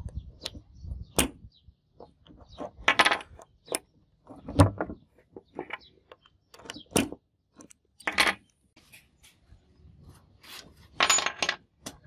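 Sharp metallic clicks and clinks of a brass key going into and turning in a small handmade steel padlock, at irregular spacing. A louder, ringing metal clink comes near the end.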